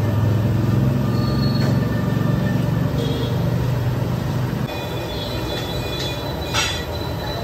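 A steady low mechanical hum that drops away about two-thirds through. A single sharp metal clank of the ladle against the large aluminium cooking pot comes near the end.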